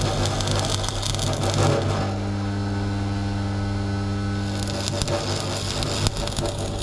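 Stick welder arc crackling while welding rebar, stopping for about two and a half seconds in the middle, where a steady low hum is left, then striking up again.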